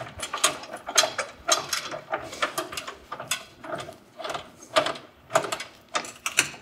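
Scissor stabilizer jack on a tent camper being cranked down by hand with its rod crank: a steady mechanical clicking and rattling, about two clicks a second as the crank turns.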